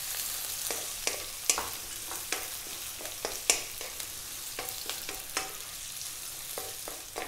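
Sliced onions and garlic sizzling in hot oil in a wok over above-medium heat, stirred with a wooden spatula that clicks and scrapes against the pan a few times a second at irregular intervals.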